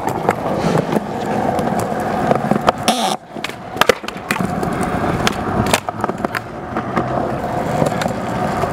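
A cheap Walmart skateboard rolling on concrete with a steady wheel rumble. Sharp clacks come again and again as the tail pops and the board and wheels slap down during flat-ground tricks.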